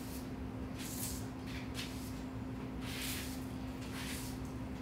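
Broom sweeping a concrete floor: about four brushy swishes of the bristles, over a steady low hum.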